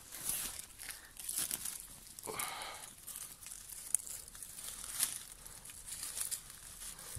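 Dry forest leaf litter crackling and rustling as a hand brushes it aside, with a few sharp snaps of twigs. A brief pitched sound cuts in about two seconds in.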